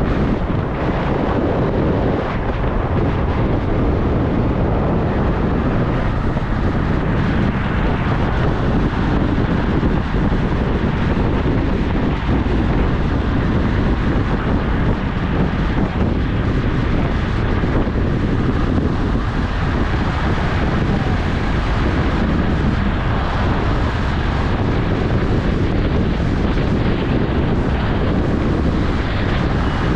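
Steady wind buffeting the microphone over the even noise of a moving vehicle.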